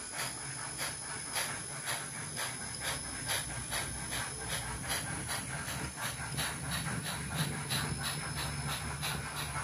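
Sound decoder in an Nn3-scale model steam locomotive playing steam exhaust chuffs through its tiny speaker as the locomotive runs. There are about two chuffs a second at first, quickening to about three a second, over a steady low hum.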